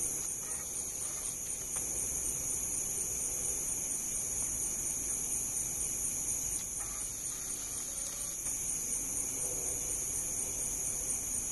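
Crickets chirping in a steady, high-pitched chorus with a fast, even pulse.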